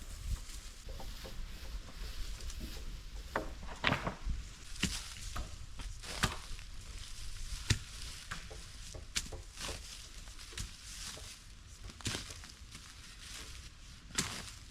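Scattered, irregular clicks and knocks, about one or two a second, over a steady hiss.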